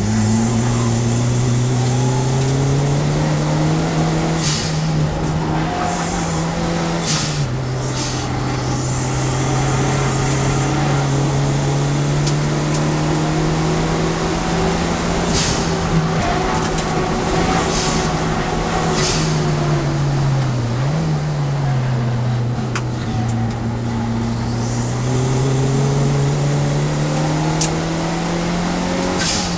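Turbocharged Fiat Seicento race car's engine at racing speed, heard from inside the stripped cabin. Its pitch rises and falls with the revs, dropping sharply about seven seconds in and dipping then climbing again around twenty seconds in, with several brief sharp noises cutting through.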